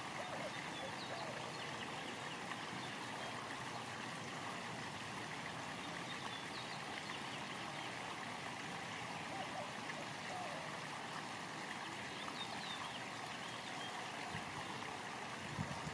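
Steady rush of running water, with a few faint, short, high chirps over it and a soft bump near the end.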